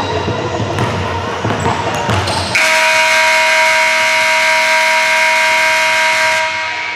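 Gym noise with a basketball bouncing, then about two and a half seconds in a gymnasium scoreboard horn sounds one loud, steady blast for about four seconds before cutting off.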